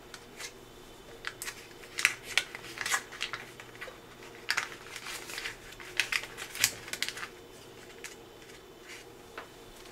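Disposable microwave fish-cooking tray being handled and pressed shut: a run of sharp clicks and crackles that stops about seven seconds in.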